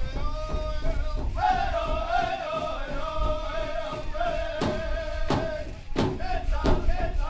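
Powwow song for jingle dress dancers: a high, wavering voice sings over a steadily beaten drum, with a few harder, louder drum strokes in the second half.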